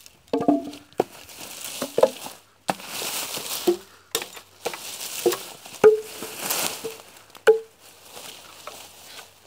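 Hatchet striking felled eucalyptus logs: about seven irregularly spaced sharp knocks, each with a brief hollow woody ring, over the rustle of dry leaves and bark being trodden and moved.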